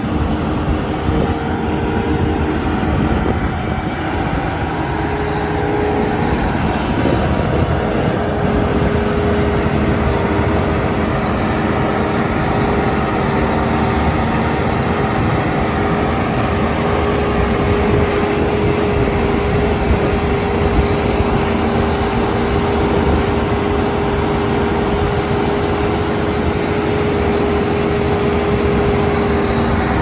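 A JCB 3CX backhoe loader's four-cylinder diesel engine running steadily while the machine works its backhoe and moves across the dirt, with a steady whine over the engine note.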